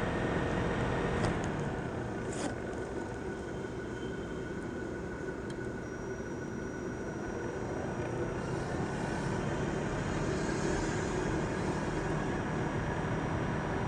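Asus laptop CPU cooling fan running loud, a steady rushing whir with a thin whine in it. It eases off a little about two seconds in and picks up again from about eight seconds, with a couple of faint clicks early on.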